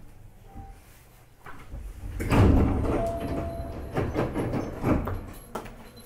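Passenger doors of a Hankyu 8300 series train sliding open at a station stop. The noise builds about a second and a half in and is loudest just after two seconds, followed by several thuds and rattles over the next few seconds.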